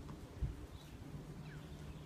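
Red deer stag grazing close by, with soft low thumps of grass being cropped, the strongest about half a second in. Faint bird chirps sound in the background.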